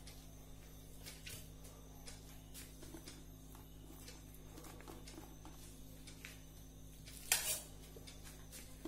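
Faint rustling and soft taps of cooked biryani rice being placed by hand into a wilted banana leaf, over a steady low hum. One brief, louder rustle comes about seven seconds in.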